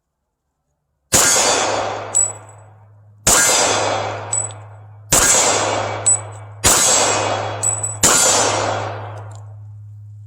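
Springfield Armory 1911 Mil-Spec Defender .45 ACP pistol fired five times in slow, deliberate shots about one and a half to two seconds apart, each shot echoing. A short high metallic ping follows about a second after each shot, and a steady low hum runs under the shots after the first one.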